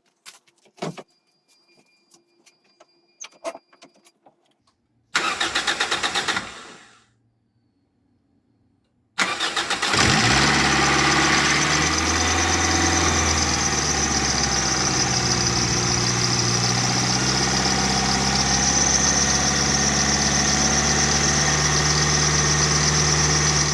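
Toyota Celica ZZT230's 1ZZ-FE four-cylinder engine being started: a brief first try about five seconds in that dies away, then cranking again about nine seconds in, when it catches and idles steadily. It is running on an engine-flush oil it runs harshly on.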